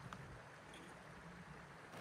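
Faint, steady rushing of a forest stream, with a faint tick or two.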